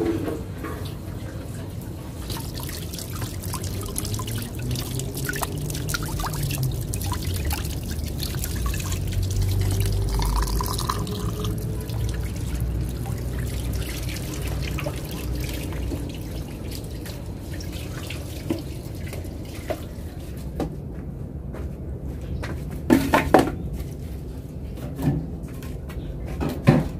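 Water running from a tap and splashing and dripping into a basin as something is washed by hand. A few sharp knocks come near the end.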